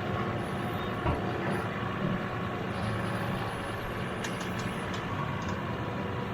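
Diesel semi-truck engine running steadily at a low, even hum.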